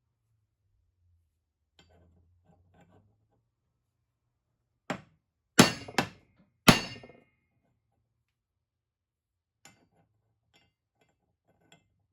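Four sharp, ringing metal-on-metal blows in quick succession, about five to seven seconds in, as a new steel pin is driven into a Triumph pre-unit gearbox cam plate. Faint clinks of metal parts being handled before and after.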